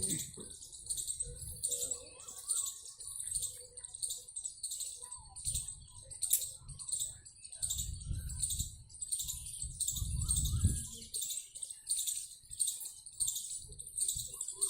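High-pitched chirping pulses repeating evenly, about two a second, typical of an insect calling, with a few faint scattered chirps underneath. A low rumble swells briefly twice near the middle.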